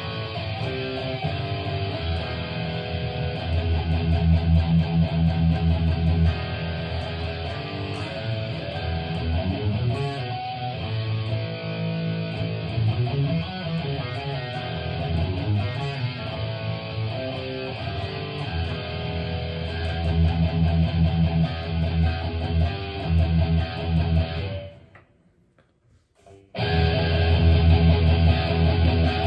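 Harley Benton Fusion-T electric guitar with EMG pickups played through a Helix Stomp amp modeller on a distorted tone: riffs with a heavy low end. The playing breaks off for about two seconds near the end, then starts again.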